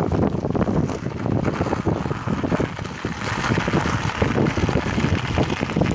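Wind buffeting the microphone while an electric bike rolls fast over a sandy, shell-strewn track, its tyres giving a steady gritty crackle.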